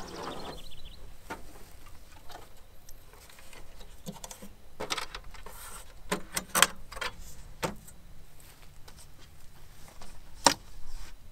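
Folding aluminium camp table being unfolded and set up: scattered metallic clicks, rattles and knocks as its frame and legs are swung out. The loudest knocks come about two-thirds of the way through and near the end.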